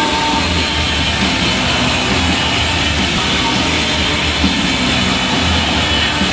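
Loud music over the stadium PA mixed with the engines of freestyle motocross bikes as they launch off the ramp, all echoing in a large arena.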